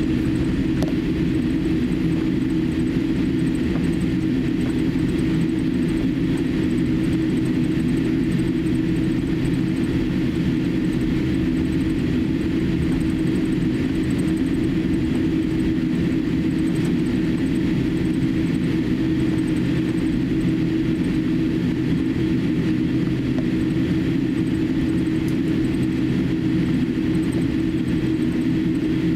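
Cabin noise inside a Boeing 787-8 airliner taxiing on the ground: a steady low drone with a constant hum.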